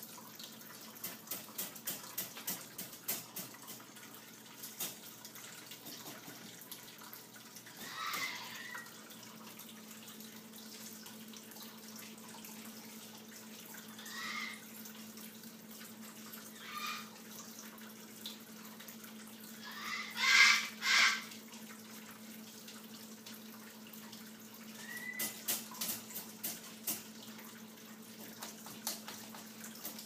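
Moluccan cockatoo giving short, scratchy calls a few seconds apart, the loudest a double call about twenty seconds in, with bursts of quick clicks near the start and again near the end. A steady low hum runs underneath.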